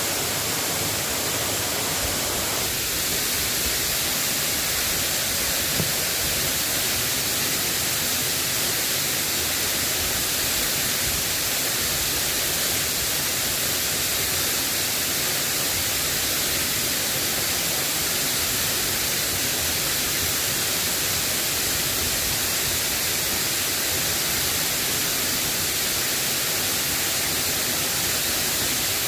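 Steady rain falling, a dense even hiss with no letup.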